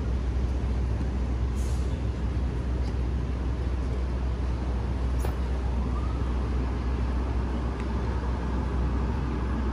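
Steady low rumble of street traffic, with an engine whine that rises about six seconds in and then holds.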